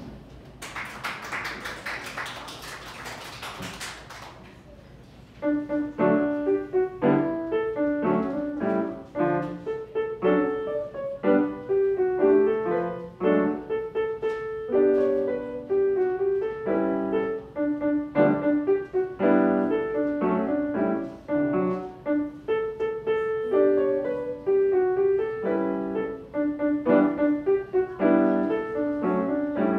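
Audience applauding briefly, then a solo acoustic piano starts a piece about five seconds in and plays on, with notes mostly in the middle range.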